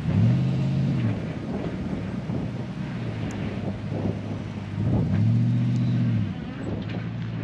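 Nissan Y62 Patrol's petrol V8 running at low revs while backing a caravan, with two brief rises and falls in revs: one at the start and one about five seconds in.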